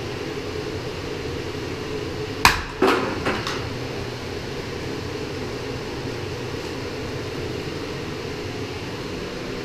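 Four quick sharp clacks about two and a half to three and a half seconds in, from tools and pipe pieces being handled during a copper water-line repair, over a steady low hum.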